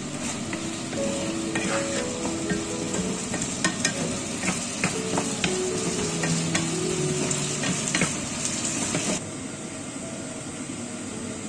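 Peppers and onions in chilli sauce sizzling in a non-stick frying pan while a wooden spatula stirs them, with frequent scrapes and taps on the pan. The sizzling stops abruptly about nine seconds in, leaving quiet background music.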